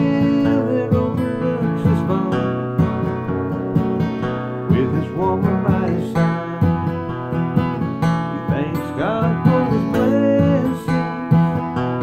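Acoustic guitar strummed in a steady rhythm, playing chords.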